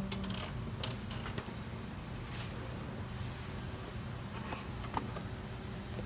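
Light clicks and creaks of hands and parts being handled in a car's engine bay, over a steady low background hum.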